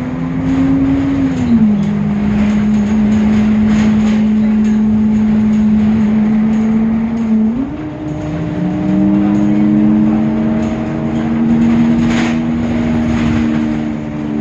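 Temsa Avenue LF city bus's DAF diesel engine running with a strong, steady low hum. The pitch drops about a second and a half in and steps up again about seven and a half seconds in. The uploader finds this a deeper sound than usual for this bus model.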